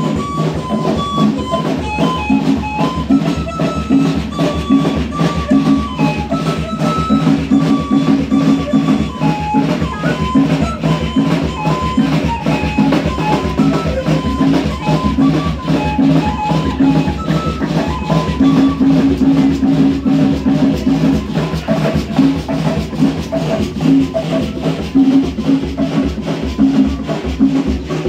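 Dance music driven by fast, dense drumming in a steady rhythm, with a melody of held notes stepping up and down above the beat.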